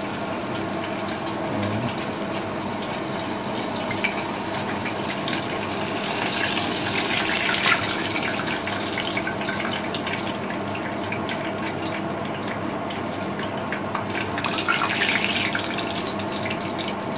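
Chicken nuggets deep-frying in a pot of hot oil: a steady sizzling bubble, with louder crackling about seven seconds in and again about fifteen seconds in.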